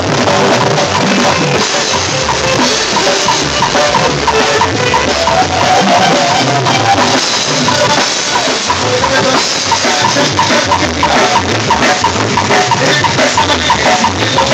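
Live duranguense band music played loud: electronic keyboard over a drum kit keeping a steady, driving beat, heard from right beside the stage.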